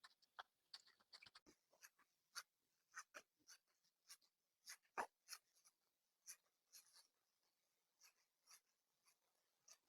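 Faint, irregular clicks and light scratchy rustles from hands unboxing and handling packs of modelling clay, with one sharper click about five seconds in.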